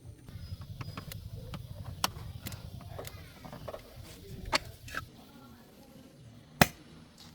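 Scattered clicks and knocks, the loudest a single sharp knock about six and a half seconds in, over a low hum that fades out about five seconds in.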